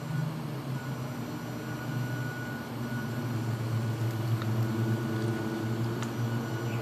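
Electric-driven hydraulic pump of a 1:12 scale RC excavator running: a steady low hum with a thin high whine above it. Its pitch drops a little right at the start, and a couple of faint clicks sound later on.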